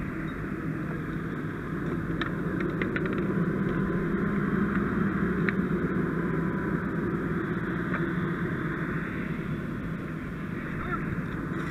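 Fire apparatus diesel engine running steadily with a low hum, under a broad rushing noise, with a few light clicks about two to three seconds in.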